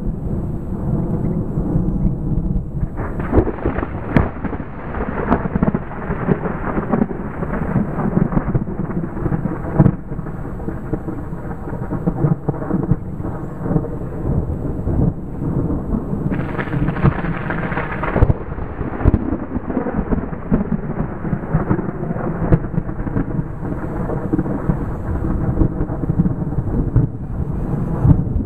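Thunder rumbling and rolling almost without a break, with crackles and sharper peaks scattered through. It grows fuller about three seconds in.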